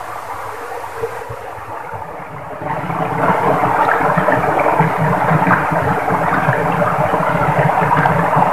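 Small stream rushing and splashing over rocks in a steady noise that gets louder about three seconds in.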